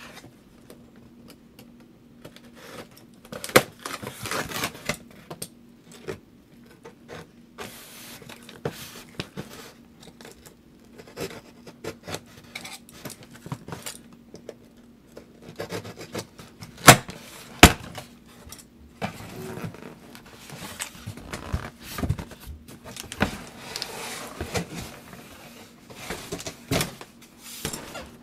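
Cardboard shipping box being opened: a box cutter slitting the packing tape, with cardboard scraping, rustling and flaps being pulled. Several sharp knocks of the box being handled, the loudest about three and a half seconds in and twice close together a little past halfway.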